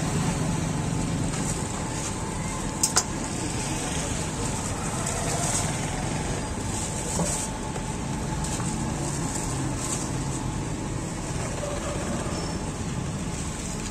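Steady background din of a busy street-side food stall, with a low rumble underneath and two sharp clicks close together about three seconds in.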